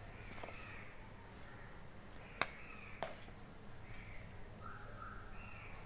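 A steel spoon clinks twice against a stainless steel mixing bowl, about half a second apart, as the pickle mixture is stirred. Faint repeated calls sound in the background.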